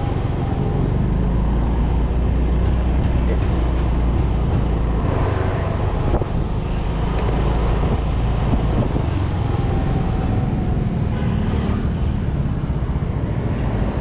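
Yamaha 125 cc single-cylinder scooter riding at low city speed: a steady low rumble of engine and road noise, with street traffic around.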